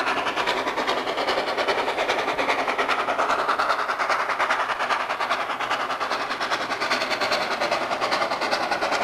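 A train running, its sound a steady noise beaten out in fast, even pulses of about six a second.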